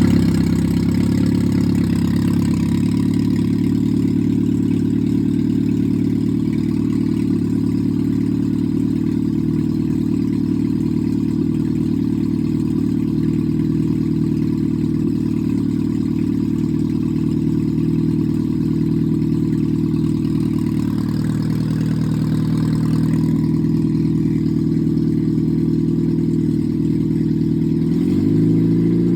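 Freshly rebuilt four-cylinder engine with flat-top pistons, 9.5:1 compression and a 270 cam, running with no muffler, a little bit loud. It runs steadily just after starting, and its speed rises near the end.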